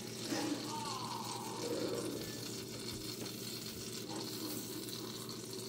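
Pancake batter sizzling steadily as it is poured into a hot frying pan.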